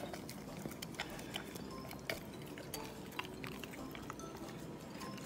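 Golden retriever eating soft cake out of a bowl: quiet wet chewing and licking, with many small clicks of mouth and teeth against the bowl.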